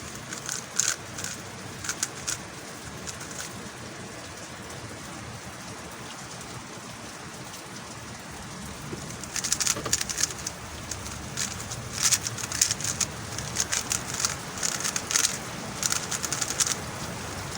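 MoYu Huameng YS3M MagLev 3x3 speedcube being handled. It gives a few clicks, then is mostly quiet for several seconds, and from about halfway it is turned fast in a solve. The turning makes rapid, irregular bursts of plastic layers clattering and clicking.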